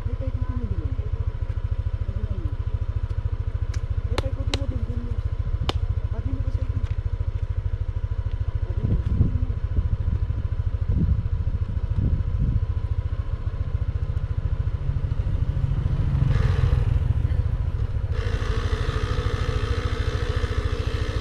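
A small motor running steadily with a fast, even low pulse, with a few sharp metallic clicks about four to six seconds in and a short hiss near the end.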